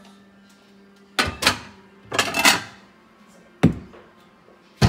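Ceramic plates being handled and taken from a kitchen cupboard: a run of sharp knocks and clatters, about five separate strikes with a short ring after each, the loudest at the very end.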